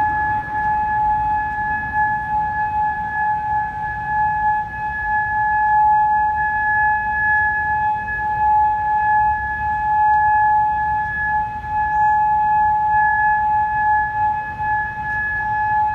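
Federal Signal Modulator 2008 electronic outdoor warning siren sounding its steady tone during a monthly test: one unwavering pitch with a fainter overtone an octave above, over a low rumble.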